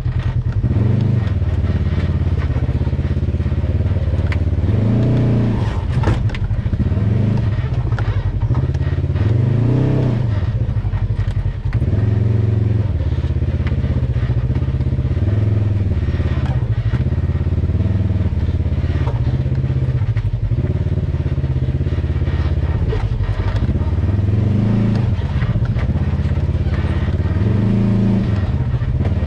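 Polaris RZR side-by-side's engine running at low speed while crawling over rocks, its pitch rising and falling with a short burst of throttle every few seconds. A few sharp knocks come through, around six and ten seconds in.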